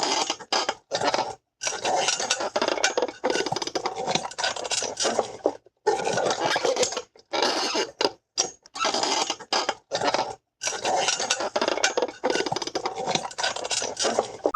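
A run of cartoon sound effects: loud, rattling clatter and scraping in several separate takes of one to four seconds each, broken by short gaps.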